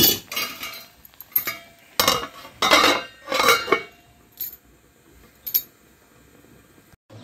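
Metal clanks and clinks of a stainless steel lid being handled and set onto a cooking pan: a quick run of sharp strikes with brief ringing in the first four seconds, then two lighter clinks.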